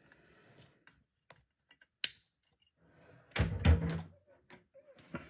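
Handling noises as an electric wax melt warmer is set up and switched on: a single sharp click about two seconds in, then a louder cluster of knocks and thuds about a second later.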